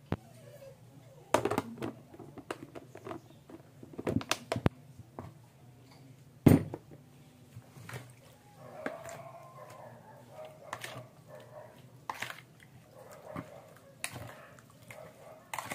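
Kitchen handling sounds of a hand mixing chicken wings with brown sugar in a plastic bowl, with scattered sharp knocks and taps on the counter, the loudest about six and a half seconds in. Faint wavering whines sound in the background around the middle.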